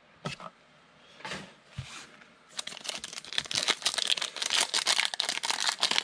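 Plastic wrapper of a 2020 Panini Chronicles trading-card pack crinkling as it is torn open, dense and continuous from about two and a half seconds in, after a few light handling clicks.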